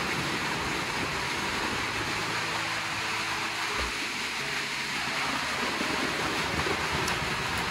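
Steady rain falling, an even, constant hiss.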